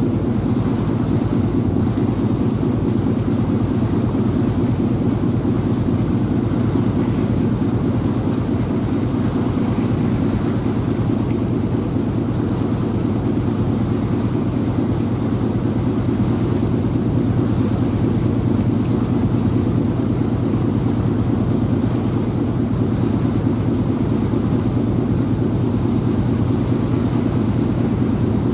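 Passenger ferry's engines and propeller running at steady cruising speed: a loud, unbroken low drone with a fast even throb.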